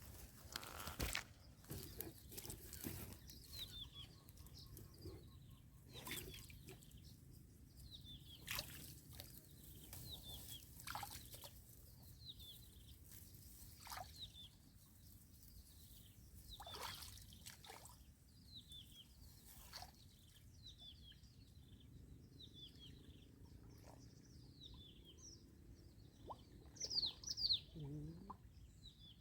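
Small birds chirping over and over, short quick falling chirps, with now and then a sharp splash or knock of water.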